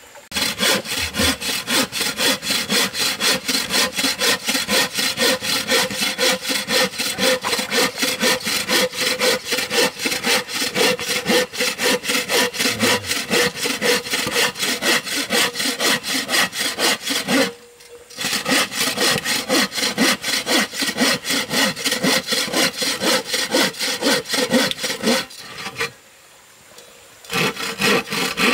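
Hand saw cutting across a wooden plank with quick, steady back-and-forth strokes, stopping briefly a little past halfway and again for about two seconds near the end.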